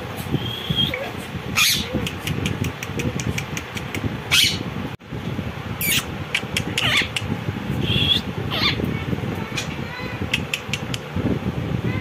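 Indian ringneck parakeets giving short, shrill screeches, about half a dozen spread through, with a few brief whistled notes and runs of sharp clicks in between.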